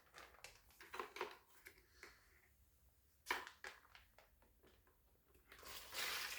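Scattered crinkling and clicking of the plastic Scrubba wash bag being handled, then near the end water starts pouring steadily into the bag.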